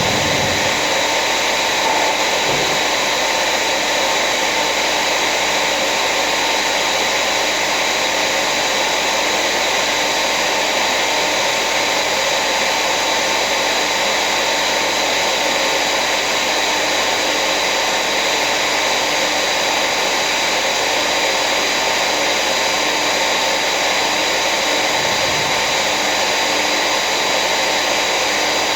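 Electric power tool motor running steadily and unbroken, a loud hiss with a faint steady whine.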